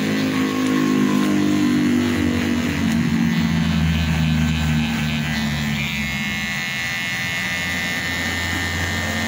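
Cordless electric hair clipper buzzing steadily as it cuts short hair at the side of the head, its hum shifting in pitch as it works.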